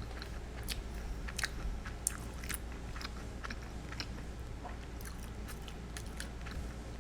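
Close-miked chewing of crunchy food, a run of irregular moist crunching clicks that thins out after about four seconds.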